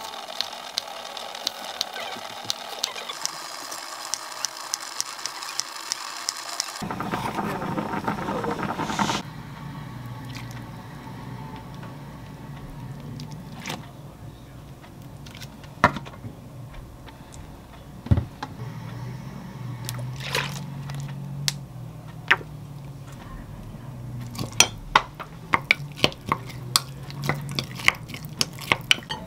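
Kitchen knife slicing cooked chicken breast on a wooden cutting board, a steady series of regular taps. After a short stretch of louder noise, liquid seasonings are poured into a glass mug, then a wooden spoon stirs the dressing, clinking against the glass many times near the end.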